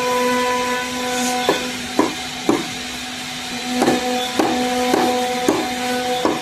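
Steady machine hum with a run of sharp knocks, mostly about half a second apart: a few early on, a pause, then a second run.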